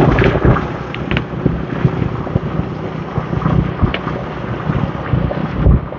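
Wind buffeting the microphone on a moving motorbike: a loud, uneven rumble over the hum of the bike's engine and the surrounding motorbike traffic.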